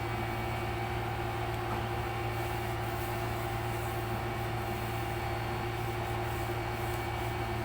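Steady low electrical hum, unchanging throughout, with a couple of faint steady higher tones above it.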